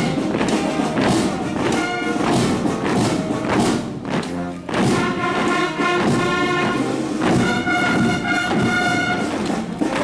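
A military brass band playing a march, with a marching column's boots thumping in step on the pavement about twice a second.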